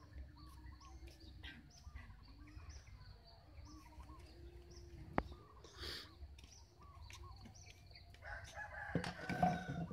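A rooster crows near the end, the loudest sound, over small birds chirping throughout. There is a single sharp click about five seconds in.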